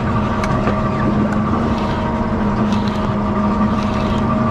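Boat engine running steadily, a constant hum.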